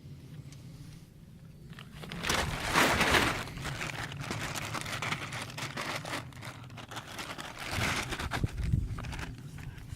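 Crinkling and rustling with many small crackles, in two louder stretches, about two seconds in and again near eight seconds.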